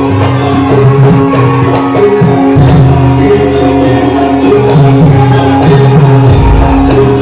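Live Javanese gamelan music accompanying a lengger dance: held metallophone tones over a steady pattern of hand-drum strokes. A deep low boom comes in near the end.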